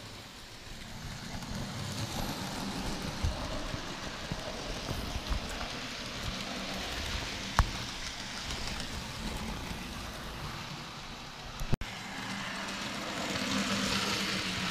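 Model railway trains running on the layout's track: a steady rumble of wheels and small electric motors that swells as the Stephenson's Rocket model train passes close, with a low hum near the end. Two sharp clicks, one about eight seconds in and one near twelve seconds.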